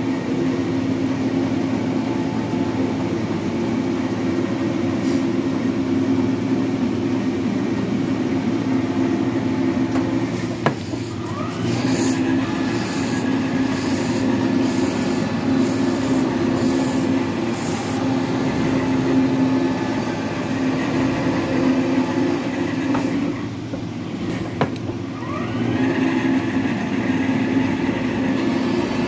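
Metal planer running, its table travelling the lathe bed under the cutting tool with a steady machine drone. About ten seconds in and again near the end there is a brief dip with a click as the table reverses, each followed by a rising whine as the drive picks up speed again.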